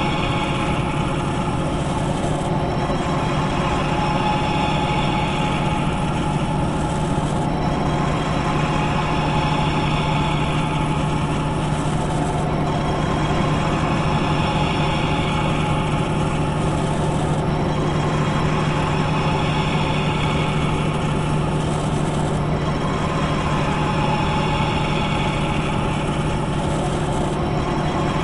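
Continuous machine ambience: a steady mechanical hum with a constant low drone. A brighter hissing swell comes round about every five seconds, in a regular cycle.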